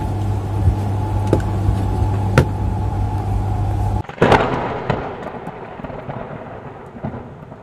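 A steady electrical hum with a few light clicks as the multimeter and its test leads are handled, then, about four seconds in, a thunder-crack sound effect that rumbles and fades away.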